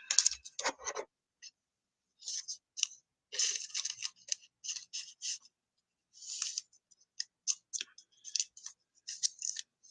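Trading cards being handled: short, scratchy sliding and rustling sounds of card stock in irregular bursts, with silent gaps between them.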